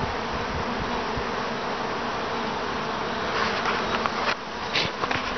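A dense cloud of honey bees buzzing in flight around the hive entrances, a steady, busy hum. A few soft taps or rustles come in over the last two seconds.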